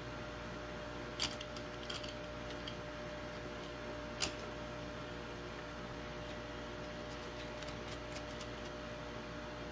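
A few small clicks and taps from handling the 3D-printed plastic tool holder block and its steel bolts on the lathe's tool post, two sharper clicks about a second in and about four seconds in, with fainter ticks near the end. A steady low hum lies underneath.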